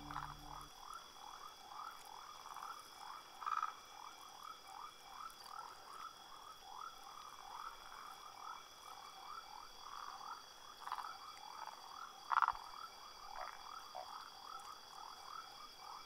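A chorus of frogs calling: many short croaks repeating rapidly and overlapping, with a few louder calls standing out now and then. Two steady high-pitched tones run behind the chorus.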